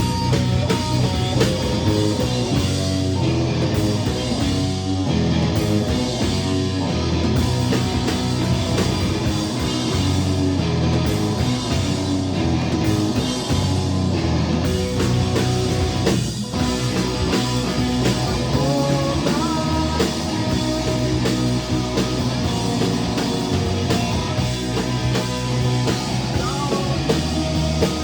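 Rock band playing live, with guitar and drum kit.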